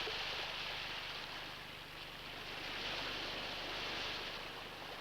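Surf washing on a beach: a steady hiss of waves that eases off and swells again.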